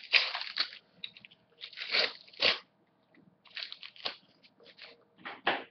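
Paper sticker packet crinkling and tearing as it is opened and the stickers are handled, in a run of short, irregular rustling bursts.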